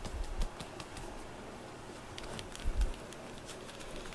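A cat padding over a bamboo floor mat and rubbing its head against the camera: soft taps and rustles, with a dull bump about half a second in and another about two-thirds of the way through.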